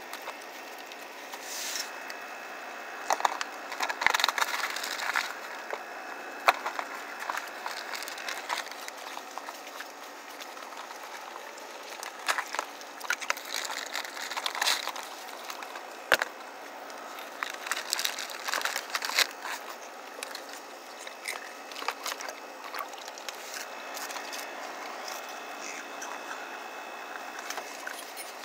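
Raccoons eating Ritz crackers and moving about on a plastic tarp: irregular clusters of crunches, crinkles and clicks over a steady background noise.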